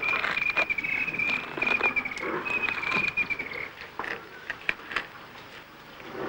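Elephants tearing bark off acacia trunks with their tusks: repeated sharp cracks, snaps and crunches of splitting bark and wood. An insect trills steadily at a high pitch until a little past halfway, then stops.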